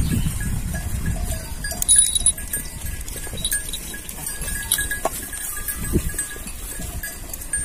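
Livestock bells clinking faintly and irregularly among a herd of cattle and goats, over a low rumble.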